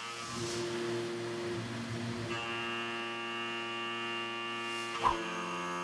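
Tormach 770 CNC mill spindle and 1-inch Shear Hog indexable cutter at 6,500 RPM roughing out the inside of an aluminum block: a steady humming whine with many overtones. About two seconds in the tone grows fuller as the cutter takes more load. A brief knock just after five seconds is followed by a change in the tone.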